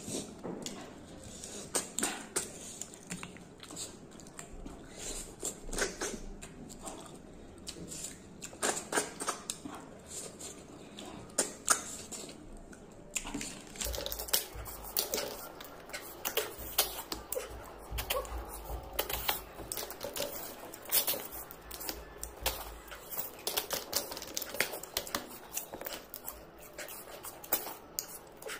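Eating sounds: an irregular run of sharp chewing clicks and wet smacks, from a mouthful of snails and vegetables.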